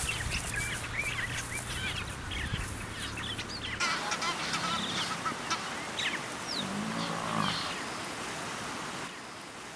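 Wild birds calling: a busy mix of short high chirps and whistles, with a lower, longer goose-like call about seven seconds in. A steady low hum underlies the first four seconds and then stops abruptly.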